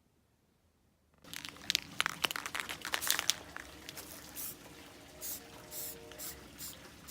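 Aerosol spray paint can: after a second of quiet, a couple of seconds of clicking and rattling, then a run of short hissing spray bursts, about two a second.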